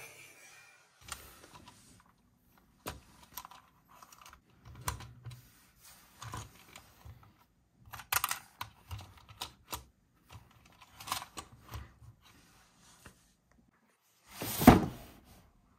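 Scattered small plastic clicks and taps as a Lightning McQueen crash-and-repair toy car is handled. Near the end comes one louder thud as a cardboard toy box is set down on the table.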